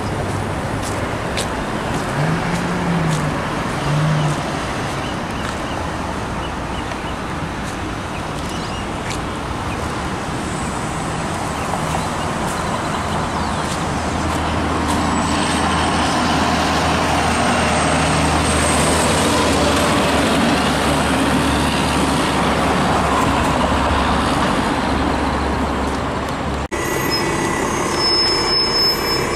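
A road vehicle running through traffic, a steady hum and road noise, with a low engine rumble that grows stronger for a stretch in the middle. The sound changes abruptly a few seconds before the end.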